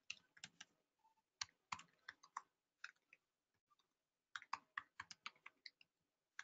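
Computer keyboard typing: quiet, irregular key clicks in short runs, with a pause of about a second partway through.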